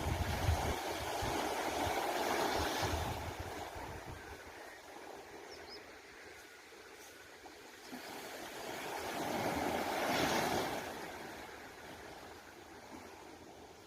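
Sea waves washing up on a beach, two surges about eight seconds apart that each swell and fade away, with a little wind rumble on the microphone near the start.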